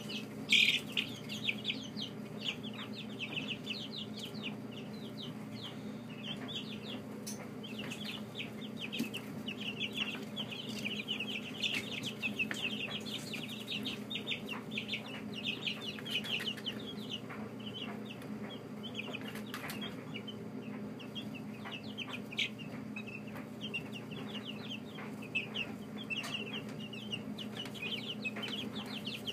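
A brood of young chicks peeping nonstop, many short falling chirps overlapping, over a steady low hum.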